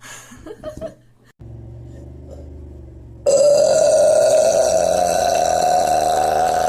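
A woman's long, loud soda burp. A lower, quieter sound starts about a second and a half in, then a much louder belch at a steady pitch breaks out about halfway through and holds for over three seconds.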